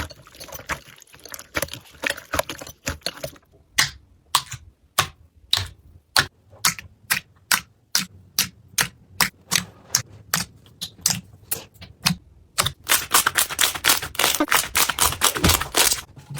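Slime being pressed and worked by hand, making crisp clicks and crackles. Irregular crackling comes first, then a run of evenly spaced sharp clicks about three a second, then dense fast crackling near the end.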